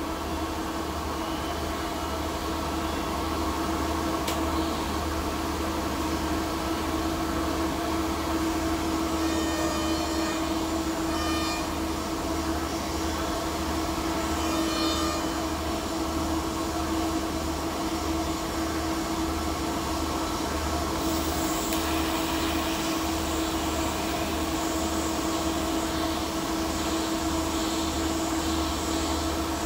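Steady drone of an electric blower fan, with a strong even hum. About two-thirds of the way in, a faint high hiss joins as the TIG arc is struck on the pipe joint.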